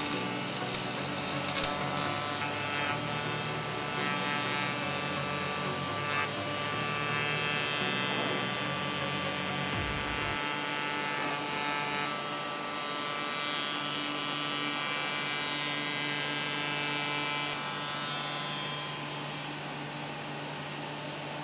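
Woodworking spindle moulder running steadily with its power feeder while a board is fed past the cutter: a steady machine hum with a high whine, its low part shifting about ten seconds in.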